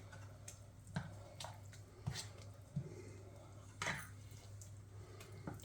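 A few faint, scattered taps and clicks of a utensil against a dish, with wet sounds from the beaten eggs being added to the rice, over a steady low hum.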